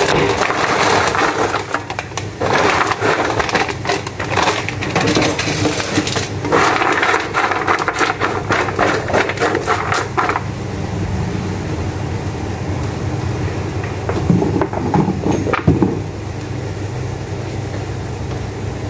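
A crinkly plastic food bag rustling and crackling as its contents are shaken out onto a paper-lined baking tray, for about ten seconds. After that it is quieter, with softer paper rustling from hands on the tray over a steady low hum.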